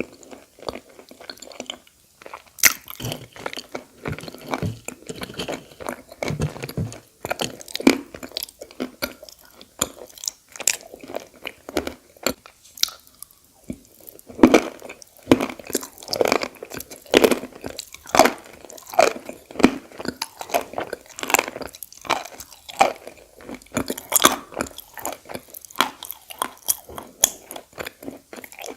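Edible clay being bitten and chewed: repeated crisp crunches, irregular and close together, with chewing between them.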